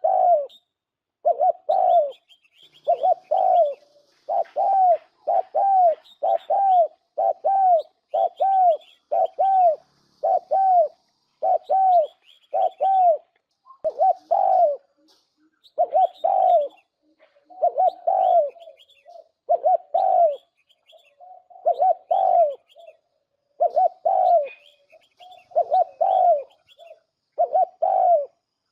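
Spotted dove lure recording: short, low cooing notes repeated steadily in quick pairs and triplets about once a second. Fainter high chirps of small birds sound above them.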